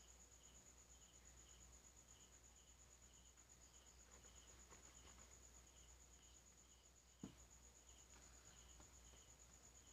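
Faint crickets chirping: a steady high trill and a lower chirp repeating about twice a second, with a single soft tap about seven seconds in.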